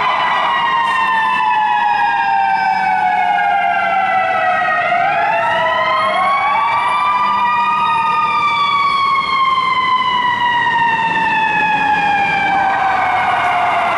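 Fire truck siren wailing in long, slow sweeps. The pitch falls for about five seconds, climbs back over about three, then falls slowly again, with a new rise starting near the end.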